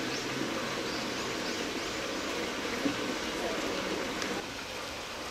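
Murmur of distant voices over a steady background hum, with faint short high chirps scattered through it and a small knock about three seconds in.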